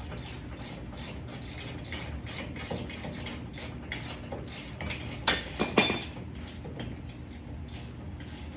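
Hand tools and steel brake parts clinking while the caliper bracket bolts come off a truck's front wheel, with a few loud metal clanks that ring briefly about five to six seconds in.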